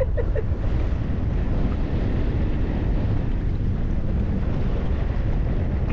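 Strong wind buffeting the microphone on a small boat, a loud, steady low rumble that drowns out other sound.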